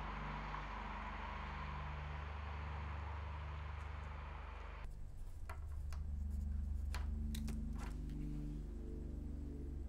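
A low droning ambient film score runs throughout, under a steady hiss of night-street ambience that cuts off about halfway through. After the cut comes a quiet room with a few sharp clicks of work at a desk.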